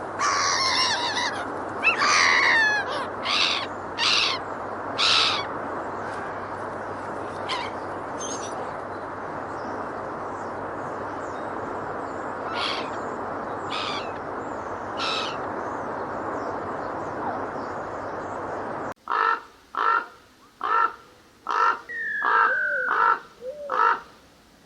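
Animal calls from two recordings. First, a run of short harsh calls and falling chirps over a steady noisy background. Then, after an abrupt change about 19 seconds in, short calls repeated about once a second, with one longer falling cry.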